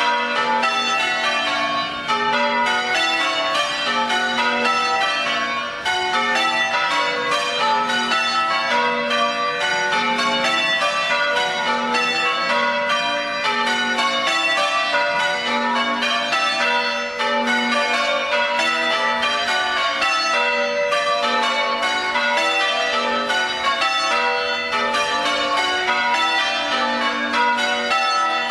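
Church bells being rung in change ringing, part of a quarter peal: a steady, unbroken stream of bell strikes, the bells sounding one after another in shifting orders.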